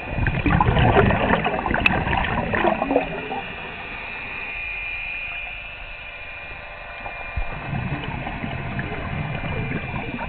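Scuba diver's exhaled bubbles from a regulator, heard underwater: a loud gurgling burst for about the first three seconds, a steadier hiss in between, and another gurgling exhale from about seven and a half seconds on.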